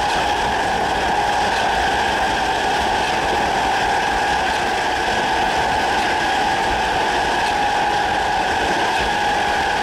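GEC G315BZ traction motors of a British Rail Class 317 electric multiple unit whining at a steady pitch with the train at speed, heard from inside the carriage over the rumble of the wheels on the rails.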